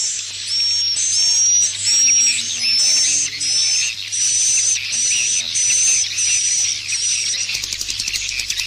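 Swiftlet roost-call lure recording: a dense chorus of high, buzzy swiftlet twitters, repeating about every half second. Near the end it turns into a rapid clicking chatter.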